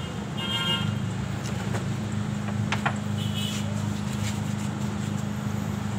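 Steady low mechanical hum like an idling engine, with a sharp light clink a little under three seconds in.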